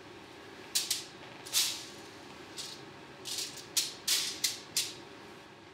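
A soroban (Japanese abacus) shaken and played as a rattle, its beads clattering in about ten short, sharp rattles, coming closer together in the second half.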